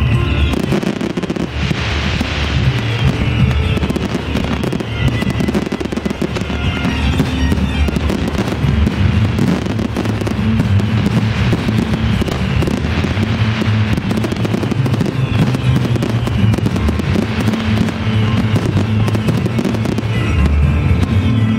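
Fireworks display firing a dense barrage of aerial shells, many sharp bangs in quick succession, over continuous music.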